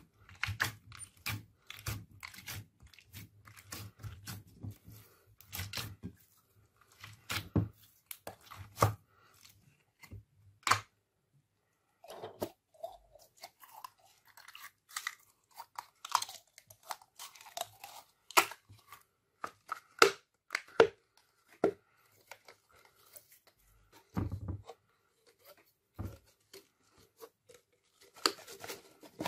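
Clear slime squished and kneaded by hand in a glass dish: irregular wet pops, clicks and crackles, with a brief silence about eleven seconds in. Later, slime squelches out of a plastic tube into the dish.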